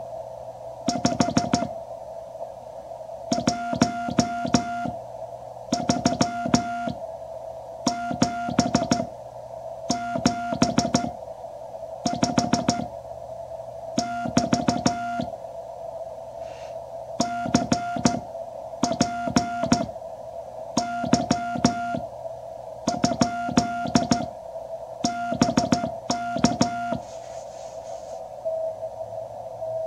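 Morse code (CW) sent by hand on a paddle into a QRP Labs QCX transceiver: groups of sidetone beeps near 700 Hz with sharp key clicks, about every two seconds. Underneath is a steady band of hiss from the receiver's narrow CW filter. The keying stops near the end, leaving a short steadier tone.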